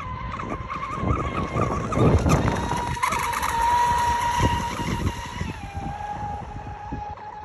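Pro Boat Sonic Wake 36 V2 RC speedboat running at speed, its brushless electric motor giving a high whine whose pitch wavers as the throttle is worked. It is loudest as the boat passes close by, with a hiss of spray, then the whine drops a little in pitch and fades as the boat runs away.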